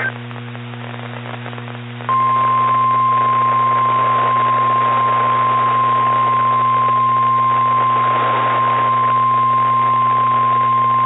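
Weather-radio emergency alert tone: a single steady high tone comes in about two seconds in and holds unchanged for about nine seconds over receiver hiss and a low hum. It is the attention signal that opens a tornado warning broadcast.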